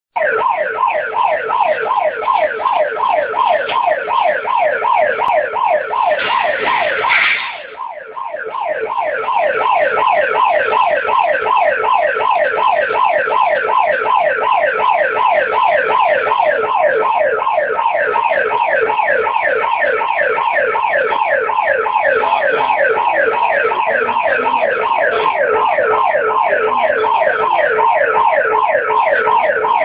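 Electronic alarm siren sounding a loud, rapid train of falling sweeps, about four or five a second, with a brief break about seven seconds in.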